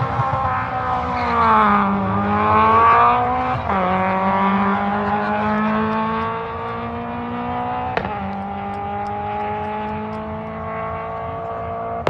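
Rally car engine accelerating hard, its pitch climbing and dropping sharply at two upshifts in the first four seconds, then a long steady climb in a higher gear, a little quieter in the second half. A single sharp crack about eight seconds in.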